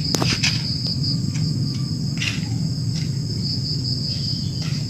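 Insects, crickets by their sound, chirring steadily in a high-pitched drone, over a steady low rumble, with a few faint taps.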